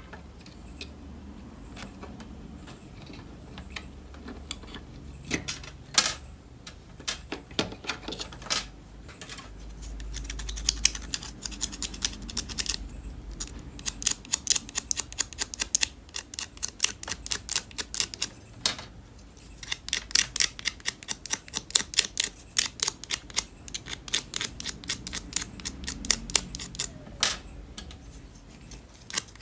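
Quick runs of small sharp clicks and taps, several a second, from hand work on the inverter's circuit board while the IRF740 transistors are being fitted.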